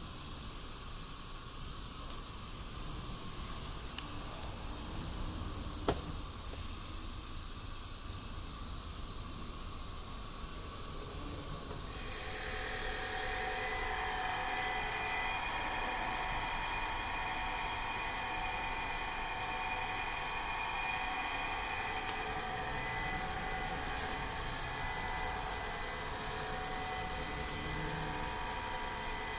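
Maruyasu Kikai counter drive roller conveyor running under power, its drive giving a steady high whine. About twelve seconds in, more mid-pitched tones join, as the conveyor speeds up or more of it starts turning. A single click sounds about six seconds in.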